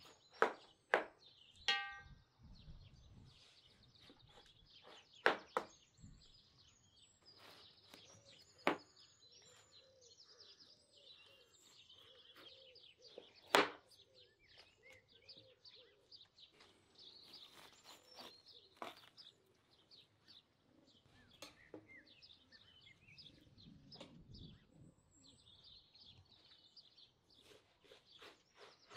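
Small birds chirping steadily in the background. Several sharp knocks and clicks stand out over them, the loudest about 13 seconds in, with a short ringing clink about two seconds in.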